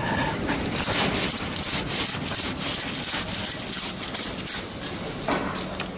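Steel ratchet-strap buckle being worked to tighten a strap: a run of quick metal clicks and rattles as the handle is cranked and the webbing pulled tight.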